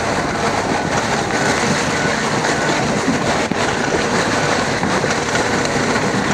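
Lada Niva 4x4s driving along a muddy, rutted dirt track: steady engine and tyre noise with many small knocks and rattles as the car rides over the ruts.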